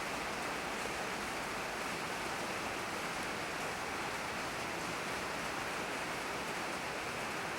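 Steady, even hiss of background noise that holds at one level, with no distinct events.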